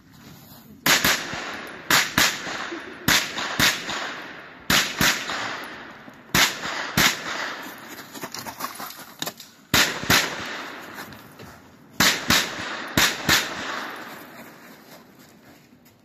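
Pistol-calibre carbine fired in quick pairs of sharp shots (double taps), about eight pairs with pauses of one to three seconds between them. Each pair is followed by an echo that dies away.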